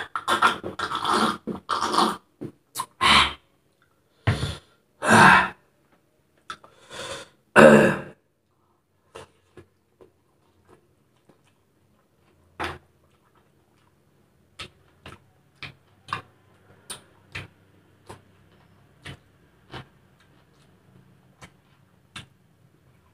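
Close-up mouth sounds of a person drinking and eating: a run of loud breathy sips, gulps and exhalations over the first eight seconds, then sparse soft clicks and smacks of chewing.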